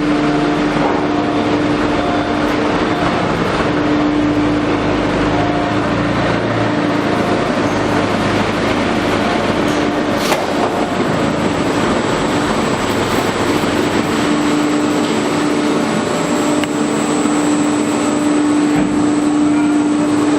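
Fastcut 1325 CNC router running, a steady spindle whine over a dense machining noise.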